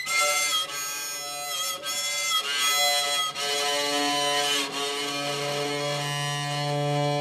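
Homemade experimental orcheguitar being bowed: high, wavering squeaky tones for the first three seconds, then a steady drone of held low notes that swells near the end.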